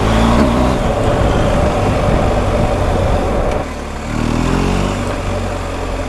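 BMW R1250 GS Adventure's boxer-twin engine running on the move, under heavy wind and road noise. A little over halfway through the noise drops suddenly and the engine note falls.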